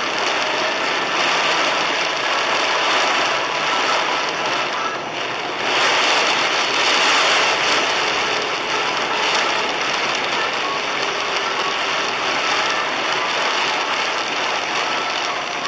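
Torrential cloudburst rain drumming on a car's roof and windscreen, heard from inside the car: a dense, steady rush of patter that eases briefly about five seconds in.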